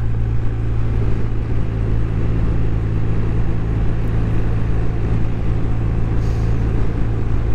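BMW R1250RT's boxer twin engine running at a steady cruise, with its pitch holding even, under steady wind and road noise.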